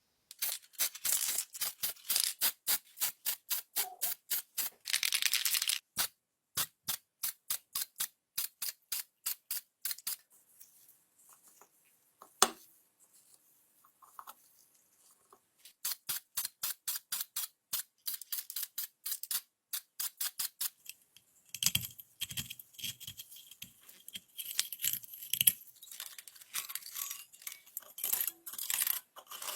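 Quick, rhythmic scrubbing strokes of a brush on a stove surface, several strokes a second in runs with short pauses, and one sharp click about twelve seconds in.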